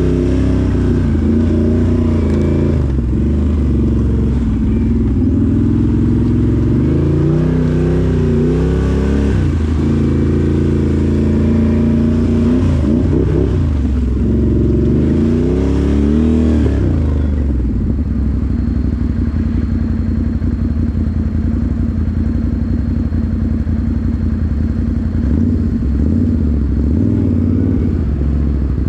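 Can-Am 1000cc off-road vehicle's V-twin engine revving, its pitch rising and falling over and over as it is driven along the trail, then settling to a steady, even pitch about seventeen seconds in.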